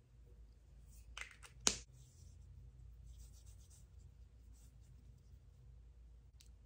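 Fingertips patting and rubbing on the skin of the face, quiet and scratchy, with two short sharp sounds between one and two seconds in.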